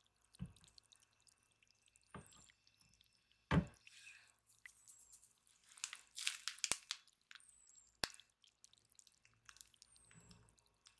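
Soft taps and one louder thump as chocolate cookie halves are set down on a wire cooling rack, with a few sharp clicks. Wet squishing near the end as chocolate filling is squeezed from a piping bag onto a cookie.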